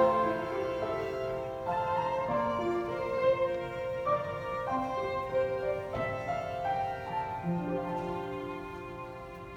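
Background music: slow bowed strings, led by a violin with piano and cello under it, playing sustained notes and fading out near the end.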